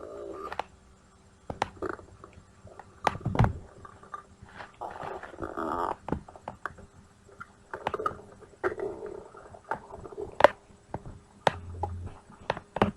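A hungry stomach growling: irregular gurgles and rumbles with sharp clicks in between, the loudest a deep thump about three and a half seconds in.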